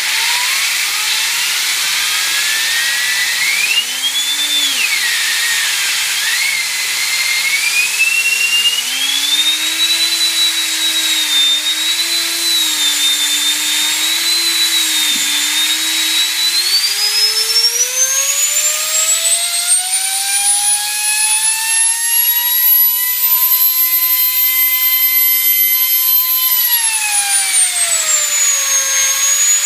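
A vacuum cleaner runs, driving a homemade air-turbine rotary tool whose twin turbines give a high whine. The whine climbs as they spin up, holds steady, climbs to a very high pitch past the middle, then drops back and steadies near the end.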